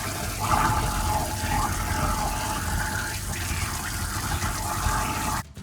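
Tap water running into a kitchen sink while a Premium 200 food waste disposer runs underneath, grinding food scraps, with a thin steady whine. The sound cuts off suddenly just before the end.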